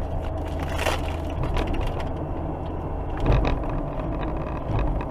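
Car cabin noise while driving at about 55–60 km/h: a steady low engine and road hum, with scattered small clicks and rattles and a dull thump about three seconds in.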